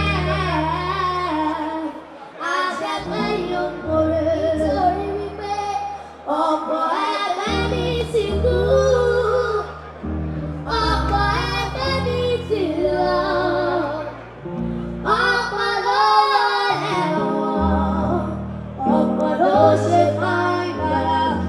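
Two young girls singing a duet into microphones in phrases of a few seconds each, over amplified instrumental backing with sustained, changing bass notes.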